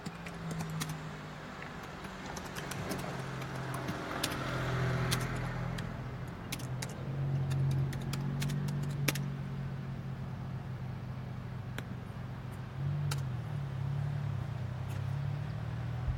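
A motor engine running steadily with a low hum, with many scattered clicks and light rattles over it. A hiss swells and fades a few seconds in.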